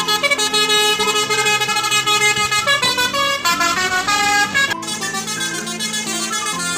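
Multi-tone "telolet" bus horn playing a tune, several horn notes sounding together and changing pitch every fraction of a second. The horn breaks off for a moment about five seconds in, then plays on.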